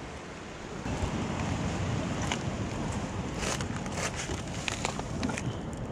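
Wind buffeting the microphone in a steady low rumble that starts about a second in, with scattered sharp clicks and crunches over it.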